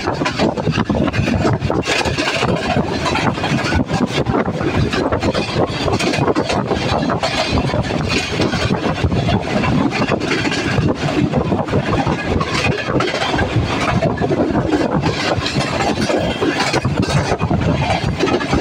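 Passenger train running, heard from an open coach doorway: a steady loud rush of wind and rolling noise from the wheels on the track, with irregular knocks throughout.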